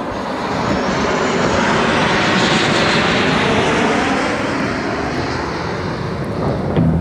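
Aircraft flying past, its engine roar building to a peak about halfway through and then fading.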